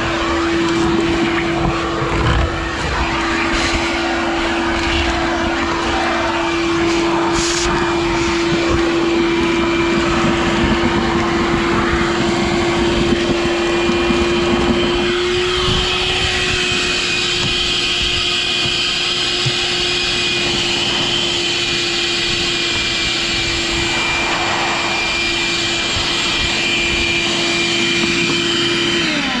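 Wet/dry shop vacuum running steadily with a constant motor hum while sucking up dirt from trunk carpet. The suction sound changes about halfway through, and at the very end the motor is switched off and its pitch starts to drop.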